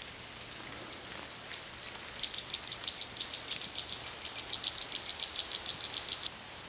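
A small songbird singing a long run of quick repeated high notes, about seven a second, starting about a second in and stopping sharply near the end. It sounds over a steady background hiss.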